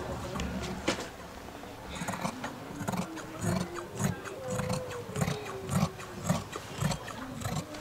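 Large tailor's shears cutting a long line through heavy dark fabric on a padded table: a regular snip with a soft thud about twice a second, starting about two seconds in.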